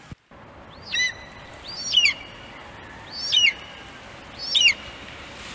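A bird calling four times, about once a second, each a short whistled call that drops in pitch, over a steady background hiss.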